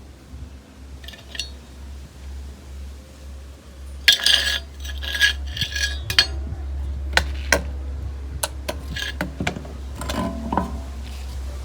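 Clinks and taps of small hard metal objects being handled, starting about four seconds in, over a steady low hum.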